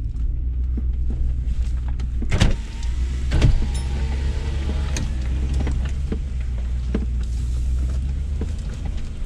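Lexus GX470's V8 running steadily at crawling speed in low range on a rough dirt trail, heard from inside the cab. Scattered sharp knocks from the truck run through it, the two loudest about two and a half and three and a half seconds in, with a faint whine from about three to five seconds in.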